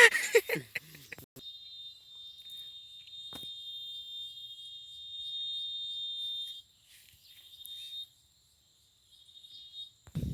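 An insect trilling steadily in a single high-pitched note. It starts about a second and a half in, weakens after the middle, and drops out near the end.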